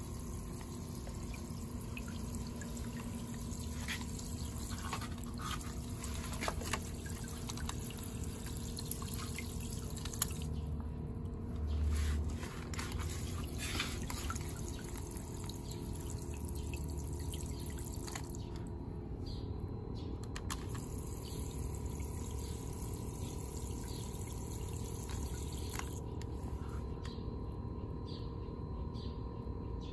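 A shower of water from a sprinkler head pattering onto the water surface and leaves of a small outdoor pond tub as it is topped up. The spray stops about two-thirds of the way through, leaving scattered small drips.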